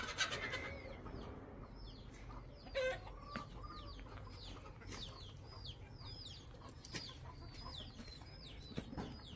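Chicks peeping: a steady run of short, high chirps, each falling in pitch, a few a second. There is a brief knock about three seconds in.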